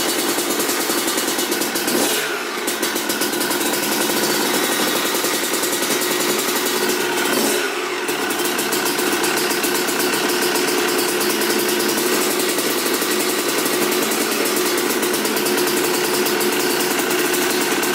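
Freshly rebuilt Yamaha YZ250 two-stroke single-cylinder motocross engine running steadily, with two brief throttle blips about 2 seconds and 7 seconds in.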